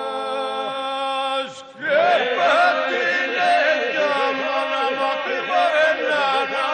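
Albanian polyphonic folk singing by a vocal group: a steady drone held under wavering, ornamented lead voices. A held chord that slides slightly down in pitch breaks off about a second and a half in, and after a short gap the lead voices come back in over the drone.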